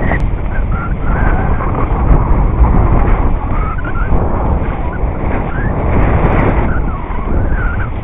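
Skis scraping and hissing over snow on a downhill run, with heavy wind buffeting on the action camera's microphone.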